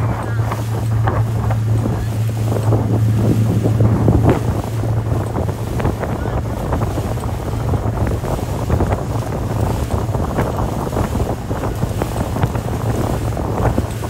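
Towing motorboat's engine running steadily under way, a constant low hum, with wind buffeting the microphone and the boat's wake churning and splashing.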